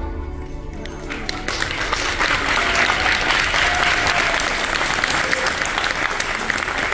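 A children's choir's last sung note fades out, then an audience starts applauding about a second in and builds to steady, loud clapping.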